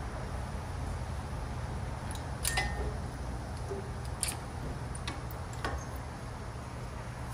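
Five or so light metallic clicks and clinks of tools and metal parts being handled during a brake job, spread out over a steady low hum; the loudest is about two and a half seconds in.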